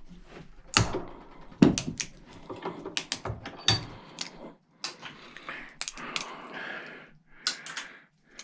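Hard plastic parts of a microwave being snapped and pried out, a run of sharp cracks, clicks and knocks, the two loudest about a second and a second and a half in.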